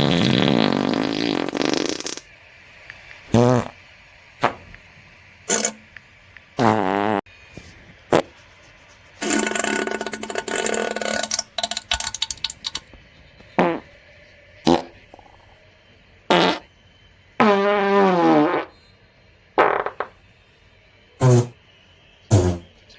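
A run of fart sounds, about a dozen separate blasts with short quiet gaps between them. Most are short, while one near the start and one in the middle each last two to three seconds. Some have a wavering, flapping pitch.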